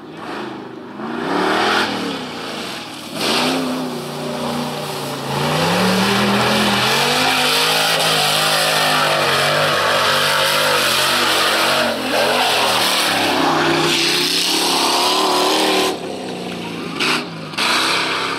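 Off-road race cars' engines revving hard on a dirt track, their pitch climbing and falling with the throttle. The sound is loudest and most sustained through the middle and drops back about two seconds before the end.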